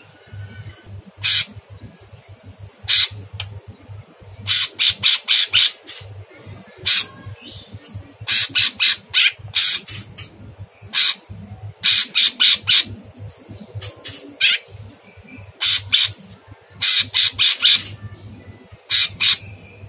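An orange-bellied leafbird (cucak cungkok) giving harsh, rasping calls, some single and some in quick runs of five or six notes, with pauses of a second or two between bursts.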